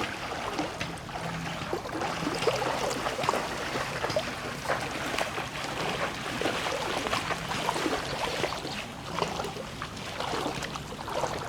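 Floodwater sloshing and trickling, with many small irregular splashes, over a faint steady low hum.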